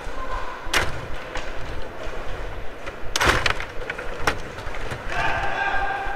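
Rod hockey table in play: rattle of the control rods and metal player figures, with sharp knocks of the puck and figures striking the boards, the loudest a little past three seconds in and others near one second and just after four seconds.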